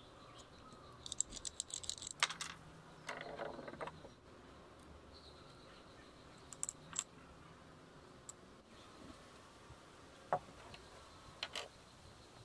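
Small metal parts of a Singer 1288 sewing machine clicking and jingling as its handwheel is worked loose and removed by hand and screwdriver. The clicks come in scattered short bursts, with the busiest rattle in the first few seconds.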